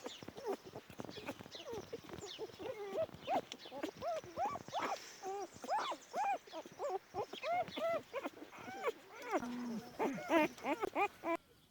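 Several puppies whimpering and yelping: a fast, overlapping run of short cries, each rising and falling in pitch. It cuts off suddenly near the end.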